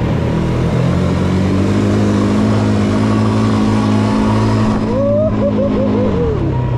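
Quad bike (ATV) engine running hard, its pitch climbing in the first couple of seconds and holding steady, then dropping as the throttle eases near the end.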